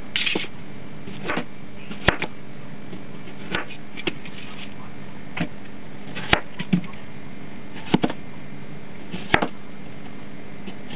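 Chef's knife slicing cucumbers lengthwise into spears, the blade striking the cutting board in sharp taps about every one to two seconds, over a steady background hum.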